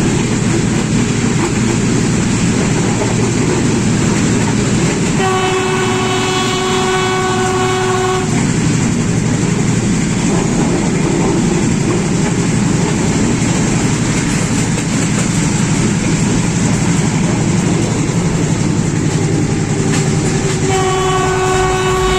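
Sri Lanka Railways Class M6 diesel locomotive with its train, a loud, steady rumble throughout. Its horn sounds one note for about three seconds about a quarter of the way in, and sounds again near the end.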